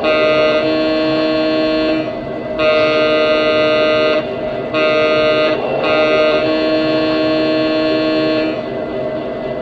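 Lionel Legacy O-scale EMD GP7 sound system sounding the diesel locomotive's multi-tone air horn in the grade-crossing pattern: long, long, short, long. The diesel engine sound keeps running underneath.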